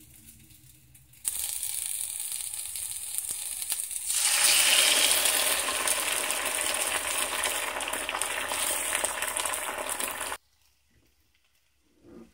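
Sliced vegetables and raw egg frying in a pan, a steady sizzle that starts suddenly, grows louder and fuller about four seconds in as the egg is poured onto the hot pan, and cuts off abruptly near the end.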